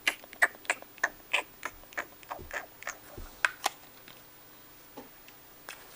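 Irregular small clicks and crinkles of a plastic toy baby bottle and its plastic packaging being handled, dense for the first few seconds and then only a couple more.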